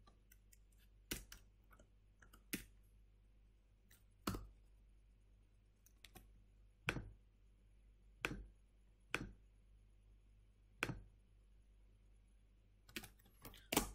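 About a dozen single clicks from a computer keyboard and mouse, spaced irregularly, with a quick run of clicks near the end.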